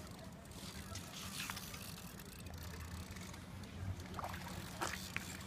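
Low steady hum of a boat's engine running, with a few brief knocks.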